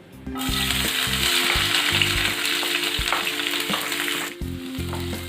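Onions hitting hot cooking oil in a frying pan and sizzling hard, the sizzle starting suddenly about half a second in and easing a little near the end.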